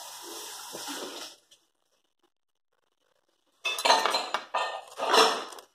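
A steady hiss that cuts off about a second and a half in, then, after a gap, several loud clinks and clatters of kitchen dishes against a stainless steel pot near the end.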